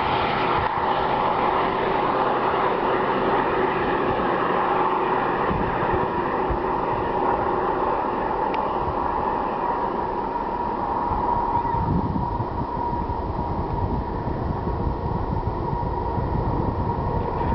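Canadian Pacific diesel freight train pulling away under load: a steady growling rumble with a thin, steady whining tone over it. The low rumble grows heavier about two-thirds of the way through.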